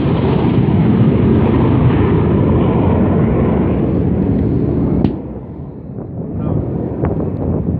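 Military jet engine roar, a loud low rumble that drops away sharply about five seconds in, followed by a few sharp clicks.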